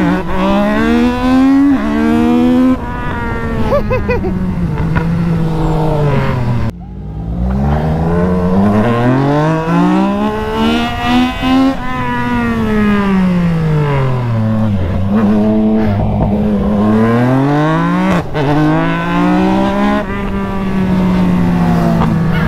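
Yamaha MT-09 three-cylinder engine at full throttle in a drag-race launch, climbing in pitch through the gears with a sharp drop in revs at each upshift, then easing off and pulling hard again, with wind rushing over the microphone.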